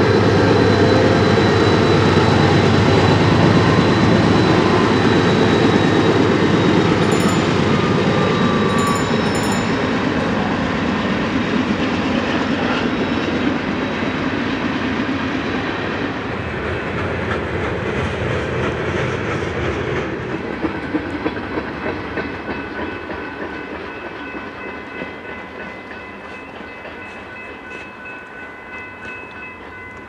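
Freight train passing close by: the engine of a mid-train GE CM44AC locomotive runs amid the heavy rumble of freight cars on the rails. The train then fades away, with wheels clicking over rail joints in the second half.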